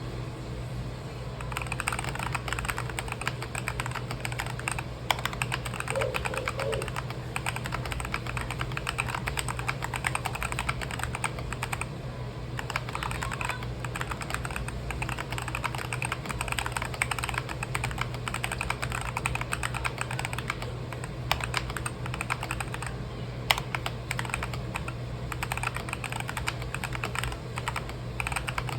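Fast typing on a mechanical keyboard with white pudding keycaps: a continuous clatter of keystrokes starting about a second and a half in, with short pauses twice. A steady low hum sits underneath.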